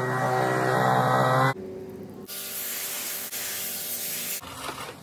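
Cordless leaf blower running with a steady whine, cutting off about a second and a half in. Then a pressure washer's jet hisses against a landscaping rock, blasting the grime off it, for about two seconds.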